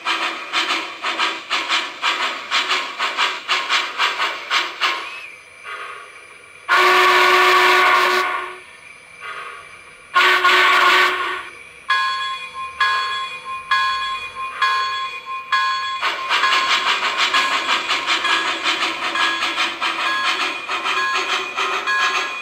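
Recorded steam-locomotive sounds from the speaker of an HO-scale MTH Union Pacific Big Boy model: fast, even exhaust chuffs, then two long whistle blasts, then a bell ringing. About two-thirds of the way through the chuffing starts again under the bell.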